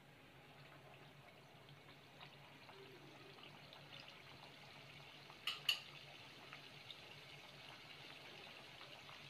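Faint sizzling of badusha dough rounds deep-frying in hot oil, getting slightly louder as it goes, with two sharp clicks about five and a half seconds in.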